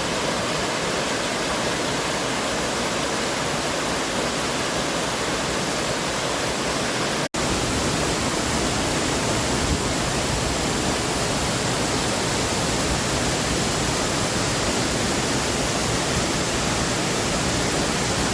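Small waterfall rushing steadily at close range, a constant broad wash of falling water. The sound cuts out for an instant about seven seconds in, then carries on as before.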